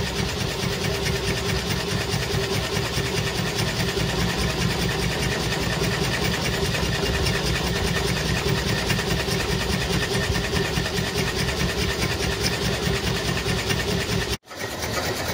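Homemade Stirling engine running steadily at working temperature, belt-driving a modified car alternator: a fast, even mechanical clatter with a steady whine through it. The sound cuts out for a split second near the end.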